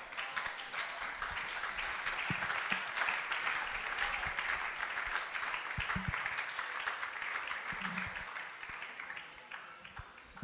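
Congregation clapping and applauding, a dense steady patter that thins out over the last couple of seconds.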